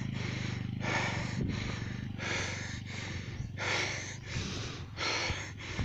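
Heavy breathing close to the microphone, in-and-out puffs about every second and a half, over the low drone of a Bajaj Pulsar 150's single-cylinder engine that fades as the motorcycle rides away.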